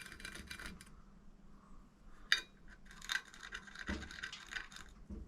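Small metal clinks, clicks and taps from tools and parts being handled on a workbench, with one sharper click about two and a half seconds in.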